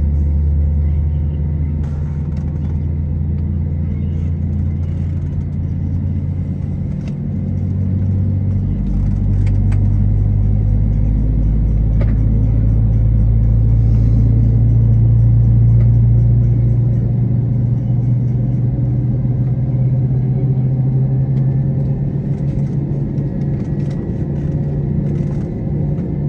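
Airbus A321 cabin drone: a loud, steady low hum from the airliner's machinery, shifting in tone about a third of the way in and again a little past halfway.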